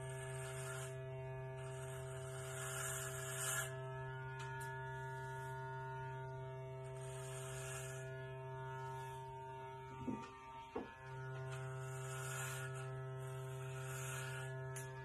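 Corded electric hair clippers buzzing steadily, with hissy crunching stretches each time the blades are run through short hair against the scalp. About ten seconds in, the buzz briefly wavers.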